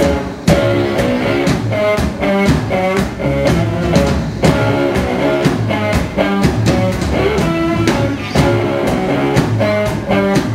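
Live blues-rock band playing: electric guitars over a drum kit keeping a steady beat.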